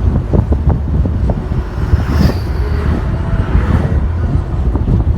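Loud, steady low engine rumble with irregular rattling and knocking over it.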